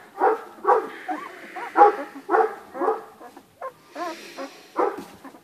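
Ten-day-old Anatolian Shepherd × Akbash puppies whimpering and squealing in a steady string of short cries, about two a second, some bending in pitch.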